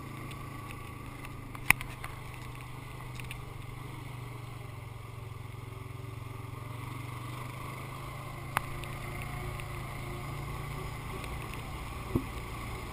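ATV engine running steadily at low speed on a dirt track, with three short sharp knocks about two seconds in, partway through and near the end.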